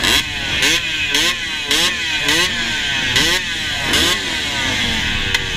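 Honda CRF250F dirt bike engine revving up and dropping back again and again, about twice a second, with a short rush of noise on each rise.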